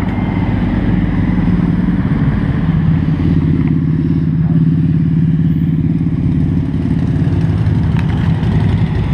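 Motorcycle engine running steadily at low revs, its low tone dropping slightly about two and a half seconds in.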